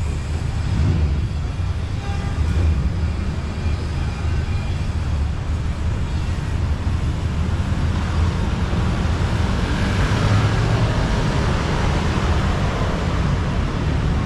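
Steady outdoor urban noise dominated by a low rumble, like road traffic, growing a little brighter and hissier in the second half.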